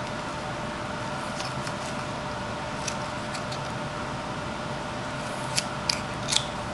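Whittling knife cutting chips off a small wooden horse carving: a few faint short snaps, then three sharper ones close together near the end, over a steady room hum.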